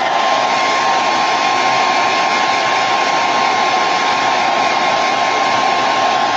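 Handheld blow dryer running steadily, a loud rush of air with a steady whine, drying wet paint.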